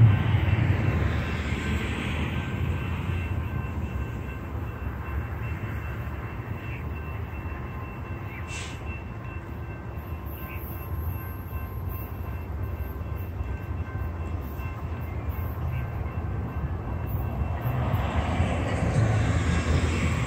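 Amtrak Pacific Surfliner push-pull train (Siemens SC-44 Charger diesel locomotive with a cab car leading) approaching from a distance. A steady low rumble grows louder and fuller in the last couple of seconds as the train nears.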